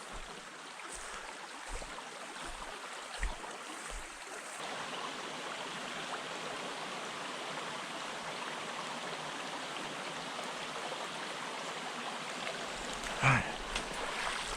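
Small mountain stream running over rocks, a steady rush of flowing water. A short, sharp sound stands out briefly near the end.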